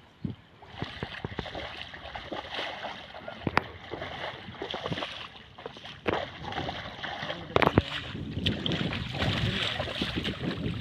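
Water sloshing and splashing as people wade through a shallow muddy pond and drag a mosquito net through it, with a few sharp clicks and knocks.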